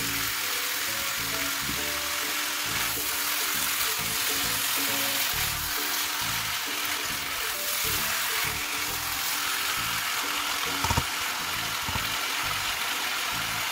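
Chicken pieces and chicken feet sizzling as they stir-fry in a wok, with a spatula stirring through them and one sharp knock about eleven seconds in. Background music with held notes plays over the frying.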